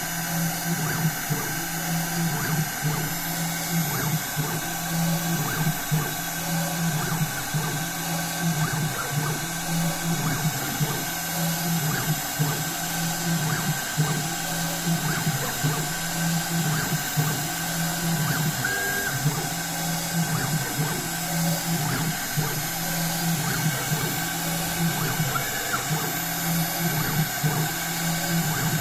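Small CNC machine's spindle whining steadily while it works a printed circuit board, with a lower stepper-motor hum that starts and stops about once a second as the axes move.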